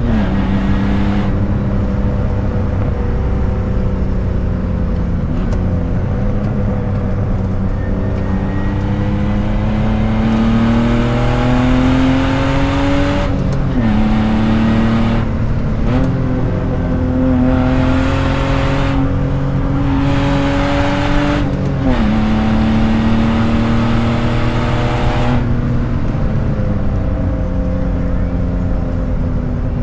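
BMW E36 328's straight-six with a loud exhaust, heard from inside the cabin while driving. The engine note climbs slowly under load and drops sharply a few times as it shifts up, over steady road and wind noise.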